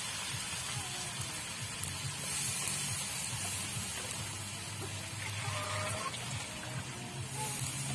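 A wok of pancit noodles and cabbage sizzling and steaming over a wood fire as the noodles are stir-fried, a steady hiss that swells briefly a couple of seconds in and again near the end.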